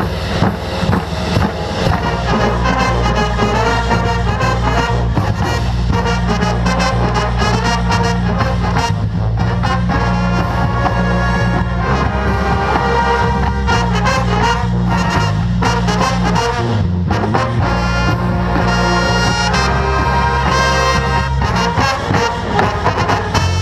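Marching band playing loudly: a brass section carries the tune over sustained low brass notes, with a drumline beating steadily underneath.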